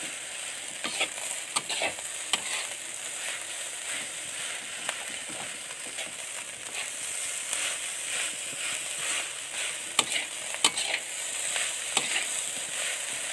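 Rice sizzling in a hot metal wok as a metal spatula keeps stirring and scraping it, frying the rice dry, with sharp clinks of the spatula against the pan now and then.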